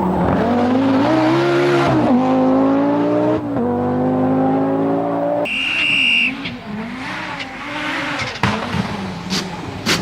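Group B rally car engines revving hard, pitch rising and dropping through gear changes, in several short clips spliced together. A brief high-pitched squeal cuts in about halfway through.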